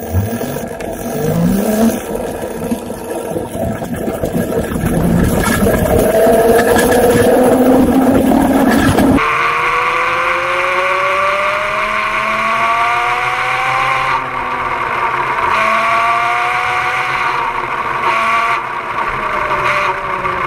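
Electric go-kart driven by a converted car alternator, its whine rising as the kart accelerates, over road and wind noise. About nine seconds in the sound changes abruptly to a close-up of the alternator and chain drive, where the motor's whine climbs and falls with speed over a steady whir from the chain running on the 3D-printed sprocket.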